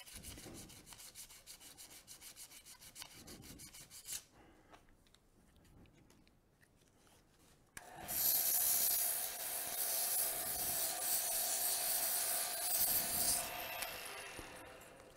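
Sanding pads rubbing on an olive wood pen blank spinning on a lathe. Fast, even rasping strokes for about four seconds, a quieter few seconds, then from about eight seconds a loud steady hiss as a fresh pad is pressed on, fading near the end.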